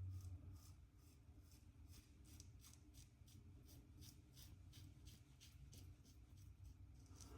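Leaf Thorn razor scraping through lathered stubble in faint, quick, regular strokes, about three a second, over a low hum.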